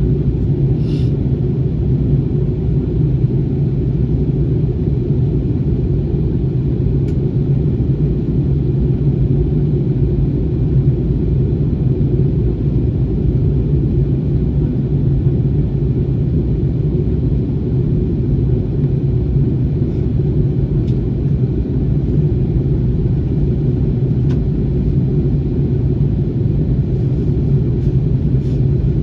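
Steady low rumble inside an Airbus A321 cabin on approach: jet engine and airflow noise heard from a window seat, with a few faint clicks.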